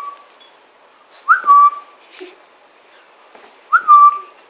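Two short, loud whistle-like squeaks, each a quick upward blip settling into a brief steady note and led by a short puff of air, made as funny sounds for a baby.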